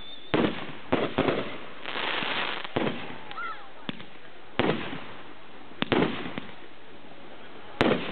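Aerial firework shells bursting one after another: about seven sharp bangs spaced irregularly, each fading into a short rumble, with a stretch of crackling about two seconds in.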